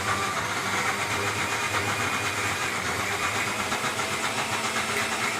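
Electric mixer grinder (mixie) running steadily at speed, grinding a wet tamarind, date and jaggery chutney to a smooth paste; it stops at the end.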